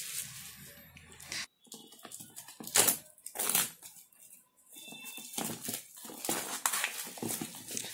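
Clear plastic shrink-wrap crinkling and tearing as fingers peel it off a cardboard box, in irregular rustling bursts with short pauses between.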